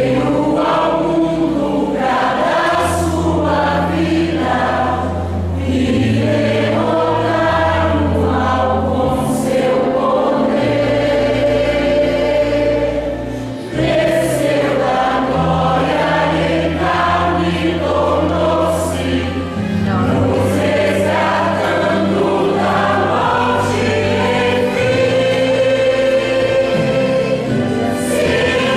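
Choir singing a gospel hymn over a sustained instrumental accompaniment with a steady bass line.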